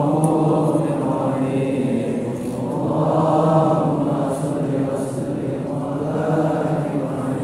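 A congregation of men chanting an Arabic devotional syair together, in long melodic phrases that swell and ease off every few seconds.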